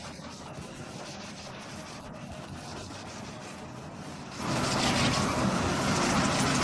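Industrial wood shredder running steadily, then suddenly much louder about four seconds in.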